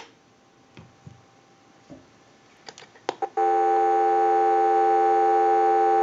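Telephone dial tone, a steady hum of several pitches, coming on about three seconds in through an amplified pickup on the receiver of an AE candlestick rotary-dial telephone. Before it come a few light clicks as the receiver is taken off its hook.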